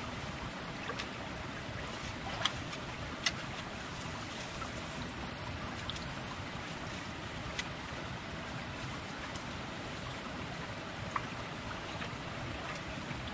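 Steady rushing of flowing creek water, with a few scattered sharp clicks and snaps.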